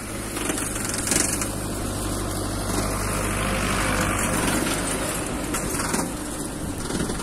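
Türk Fiat 70-56 diesel tractor running under load while driving a rear-mounted rotary mower through grass. The engine and mower noise swells as the tractor passes close, then eases slightly near the end. There is a brief sharp clatter about a second in.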